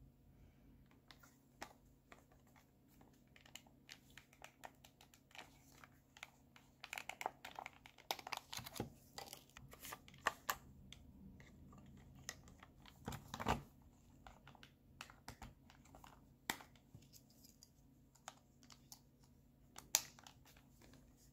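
Small plastic clicks and taps from handling a Sony WM-F15 Walkman's case, with a busier run of clicking and rattling in the middle as an AA battery is put into its compartment, and one sharp click near the end.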